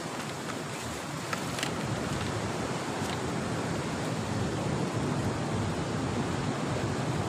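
Sea waves breaking and washing on the shore, a steady rushing that swells a little after about two seconds, with wind buffeting the microphone.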